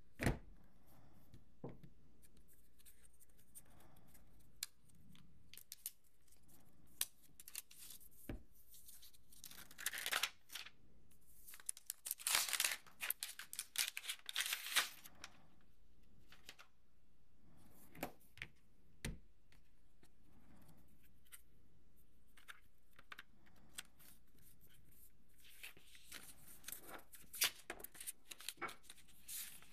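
Paper and cardboard packaging of an iPad mini box being opened and handled. A sharp knock comes right at the start, then bursts of paper tearing and crinkling in the middle. Lighter rustling of paper sleeves follows near the end.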